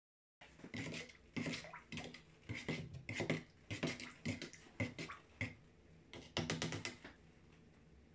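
Glaze being stirred in a plastic jug with a metal tool, which knocks and scrapes against the jug in irregular strokes, about three a second. The stirring stops about a second before the end.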